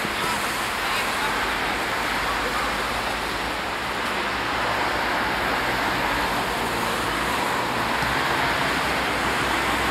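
Steady rushing outdoor background noise with faint distant voices of players.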